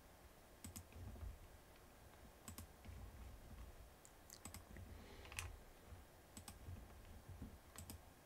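Faint computer mouse clicks, several in quick pairs like double-clicks, over a low steady room hum.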